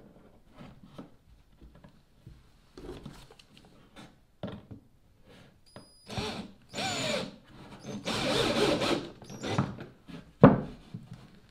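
Cordless drill driving a screw into wood in three short bursts beginning about six seconds in, the pitch falling during the first burst as the motor slows under load. Faint clicks and handling come before it, and a sharp knock near the end is the loudest sound.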